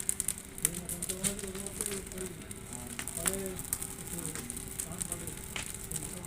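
Fire crackling, with irregular sharp pops, under faint voices and a steady thin hum.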